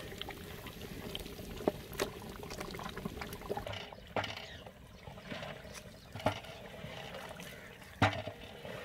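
Goat meat and its liquid bubbling and sloshing in a large aluminium pot as a long wooden paddle stirs it, the water nearly boiled away before the meat starts to fry. A few sharp knocks stand out, about two, four, six and eight seconds in.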